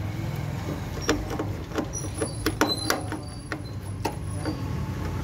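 Hand screwdriver turning a screw into a microwave oven's sheet-metal frame at the door latch: a run of irregular small clicks and scrapes, about three or four a second, as the tip turns and re-seats in the screw head. A steady low hum runs underneath.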